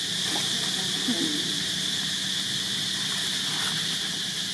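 Steady, high-pitched drone of insects, with a faint low hum beneath it.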